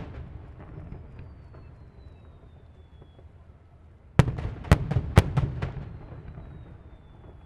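Aerial fireworks bursting. Rolling echoes of earlier shell bursts fade away, then about four seconds in comes a rapid run of five or six sharp bangs, each trailing a rumbling echo. A faint high tone slides slowly downward twice, once in the quieter stretch and once after the bangs.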